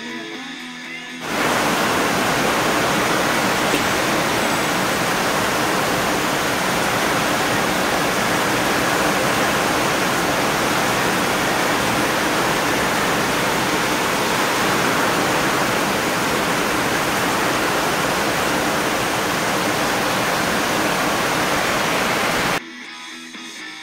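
A loud, steady rushing hiss that starts abruptly about a second in and cuts off abruptly near the end.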